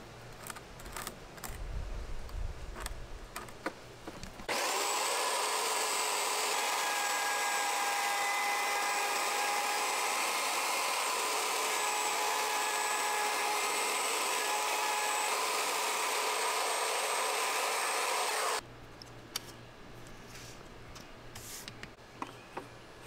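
Ryobi router running steadily, cutting a hinge mortise into the edge of a solid-core wooden door; it starts and stops abruptly and is by far the loudest sound. Before it, light pencil scratches and clicks of marking with a metal square; after it, quiet handling clicks of a door hinge being fitted.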